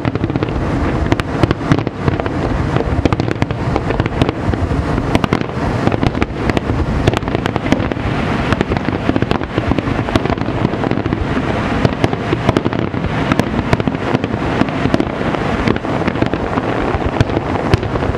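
Dense barrage of aerial fireworks shells bursting over a harbour, a close-packed run of sharp bangs and pops without a break.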